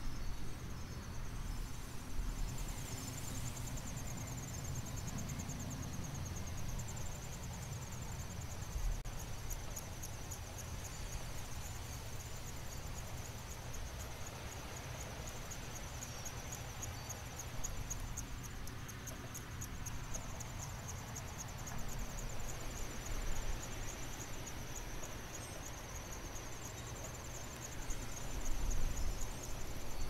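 Night insects chirping in fast, even, high-pitched pulse trains, over a steady low rumble of wind. The wind swells briefly near the end.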